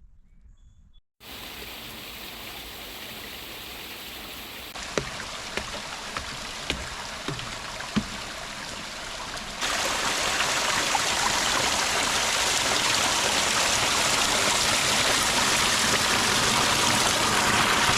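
Steady rush of running water, in stretches that step up abruptly in level about five and ten seconds in, with a few faint clicks in the middle stretch.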